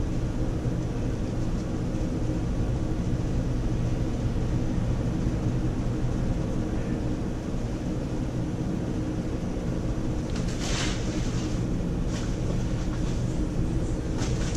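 A steady low machine hum, like a running fan or motor, with brief scraping and handling noises about ten seconds in and again near the end.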